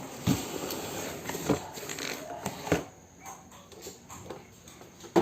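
Packaging rustling and handling noise as a car armrest is lifted out of its box, with a few sharp knocks in the first three seconds, then quieter.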